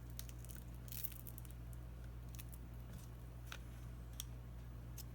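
Faint, scattered clicks and light scrapes of small repair tools working on a tablet's screen, about one a second, over a steady low electrical hum.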